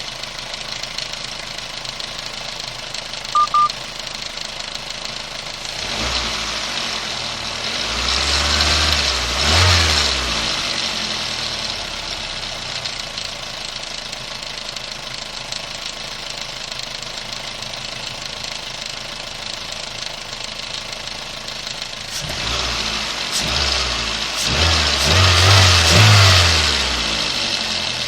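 Toyota 1ZZ-FE 1.8-litre inline-four running with a knock, revved up twice, each time rising and falling back to idle. A short double beep sounds about three and a half seconds in.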